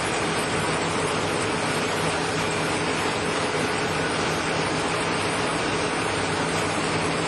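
Rope-making machine running: a steady, even mechanical noise with a constant low hum that does not change.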